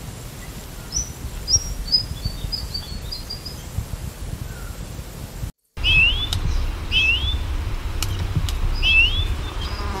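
Old field recordings of birdsong over a low rumble of recording noise. First a fantail gives a quick run of short, high, thin descending notes. After a brief break, an ʻōʻū, a Hawaiian honeycreeper, whistles three rising, slurred notes, about a second or two apart.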